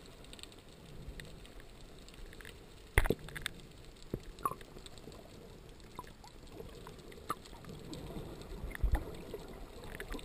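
Underwater sound through a GoPro's waterproof housing: a low, muffled hiss of water with scattered clicks and knocks, the loudest knock about three seconds in. The water noise grows near the end, with another knock, as the camera moves up just under the surface.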